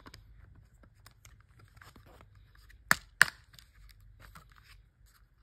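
Hands and a precision screwdriver working on a DJI Spark drone's plastic body while its screws are being undone: faint scattered clicks and rustles, with two sharp clicks about three seconds in, a third of a second apart.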